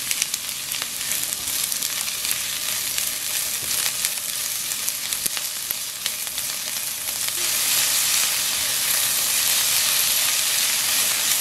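Diced onion and sliced garlic sizzling in hot olive oil in a frying pan, stirred with a spatula, with scattered short scrapes and taps from the spatula. The sizzle grows louder about two thirds of the way through.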